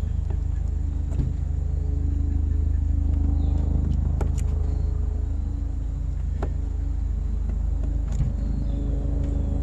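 A nearby engine running steadily at idle, a low hum, with a few sharp clicks and taps over it.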